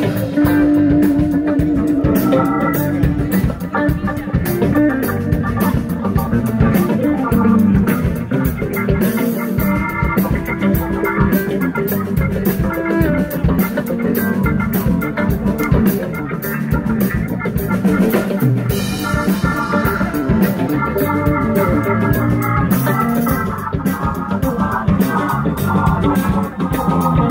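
Live rock band playing an instrumental passage: drum kit keeping a steady beat under bass, electric guitars and an organ-toned keyboard.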